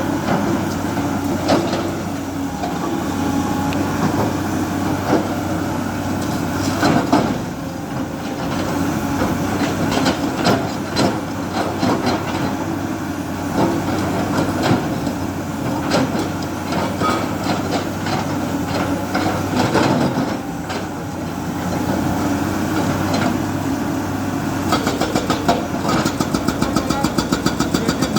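Backhoe loader's diesel engine running, with scattered clanks and knocks throughout. Near the end a fast, even chugging pulse of about four to five beats a second sets in.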